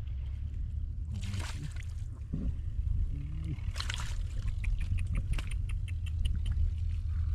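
Water splashing and sloshing twice as someone wades and works in a flooded rice field, over a steady low rumble, with scattered small clicks and drips.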